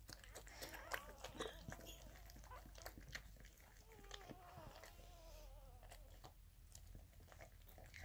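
Corgi mother licking a newborn puppy to clean it just after birth: faint, wet licking and mouth clicks, with a faint wavering whine about halfway through.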